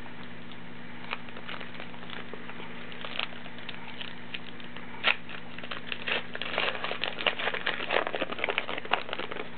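A Topps Heritage baseball card pack's wrapper being torn open and peeled off the cards: a few light ticks, a sharp rip about five seconds in, then dense crinkling for the last few seconds.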